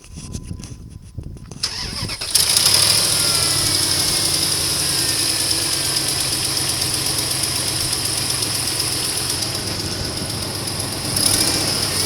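A 2002 Dodge Ram 1500's 4.7 L V8 being started: the starter cranks for about two seconds, the engine catches with a jump in level, then settles into a steady idle. The owner reports a clicking from the engine that he cannot yet explain.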